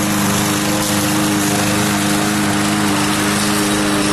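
Vacuum cleaner running steadily at full speed, its motor having just spun up.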